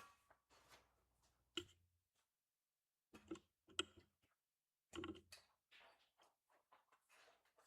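Near silence in a quiet room, broken by a few short faint clicks and knocks: one about a second and a half in, a small cluster around three to four seconds, and another around five seconds.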